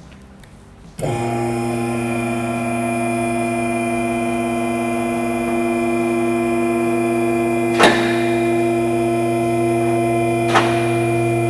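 Two-post car lift's electric hydraulic pump motor starting about a second in and then humming steadily as it raises the vehicle, with two sharp metallic clacks in the second half as the lift's safety locks catch.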